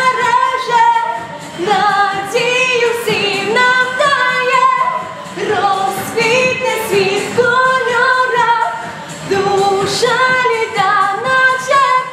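A girl's solo voice singing a pop song live, in melodic phrases of a few seconds with brief breaks between them.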